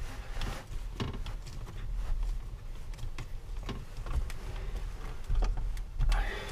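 Scattered small clicks, taps and knocks of hand work on a van's roof skylight fittings, at irregular moments over a low steady rumble.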